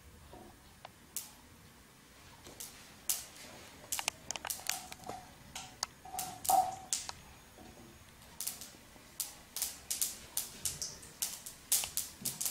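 Mustard seeds starting to pop in hot oil in a wok: scattered sharp crackles, few at first and coming faster and louder in the last few seconds.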